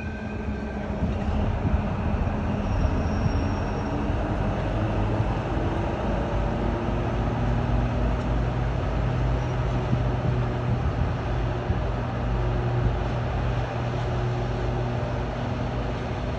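Diesel shunting locomotive's engine notching up, rising in pitch over a few seconds as it hauls a rake of tank wagons, then running steadily under load.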